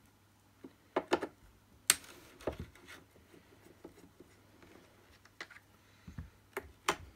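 Scattered clicks and knocks as a screwdriver and hands work at the plastic casing of an Electrolux 502 vacuum cleaner, with the sharpest click about two seconds in.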